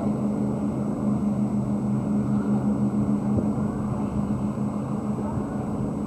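Boat engines running steadily, a constant low drone under a rushing noise.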